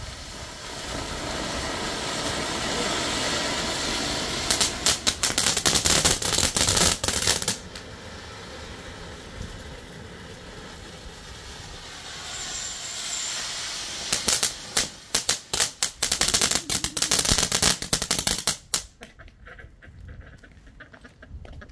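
Fifteen firework fountains burning at once with a steady hissing spray of sparks, broken twice by long spells of rapid crackling, then dying down near the end as they burn out.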